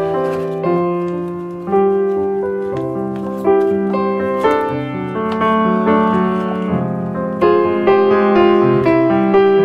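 Background piano music: a slow melody of struck notes and chords, each note fading after it sounds.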